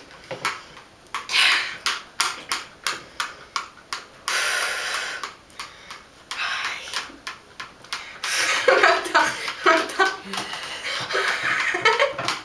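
A girl's breathy whispering and mumbled mouth noises, with short clicks, turning into voiced sounds and laughter in the second half.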